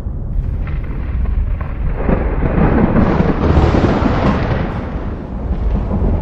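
Rolling thunder: a continuous deep rumble that swells about two seconds in and eases off again after about five seconds.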